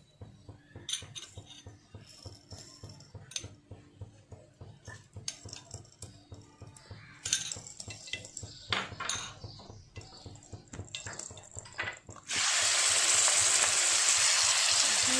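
A few light clicks and knocks of cookware. About twelve seconds in, a loud, steady sizzle starts suddenly as the marinated chicken pieces go into hot oil in a nonstick frying pan to shallow-fry.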